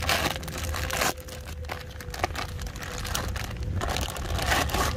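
Clear plastic bag crinkling and rustling as hands tear it open and pull it off a plastic toy car. The crackling comes in irregular bursts, busiest in the first second and again near the end.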